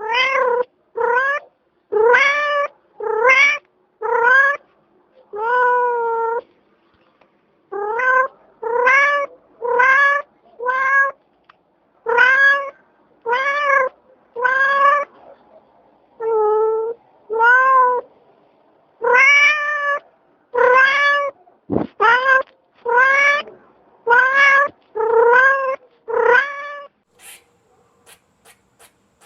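A cat meowing over and over: about twenty short meows at roughly one a second, each rising and then falling in pitch, with a couple of brief pauses. The meows stop a couple of seconds before the end.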